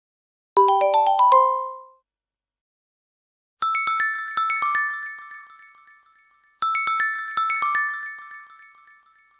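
Meizu Flyme phone alert tones: a quick run of mallet-like notes that dies away about two seconds in, then after a pause a bright chiming phrase of several quick notes, played twice the same way.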